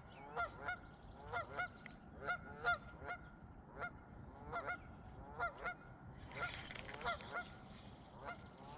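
Goose honking, a steady run of short, repeated calls.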